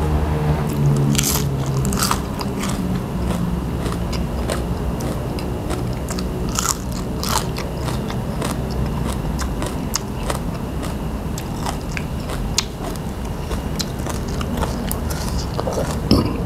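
Close-up chewing of crisp food, with repeated sharp crunches and wet mouth sounds as mouthfuls are bitten and chewed.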